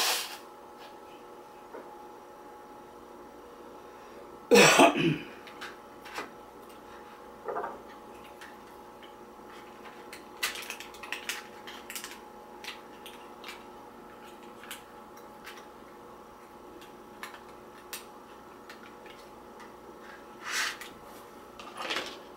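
A man coughs loudly once, clearing his throat, about four seconds in, with a few shorter sniffs or breaths at other moments. In between, metal utensils tap and scrape lightly on a paper plate as he cuts food, a run of short clicks in the middle.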